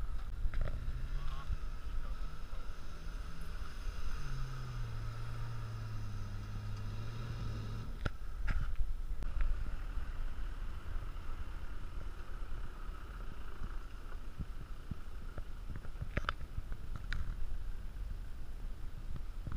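Engines of off-road 4x4 SUVs (a red SUV, then a Jeep Grand Cherokee) running at low speed as they crawl through a deep sandy rut, over a steady low wind rumble on the microphone. The engine note grows louder about four seconds in. A few sharp clicks are heard later on.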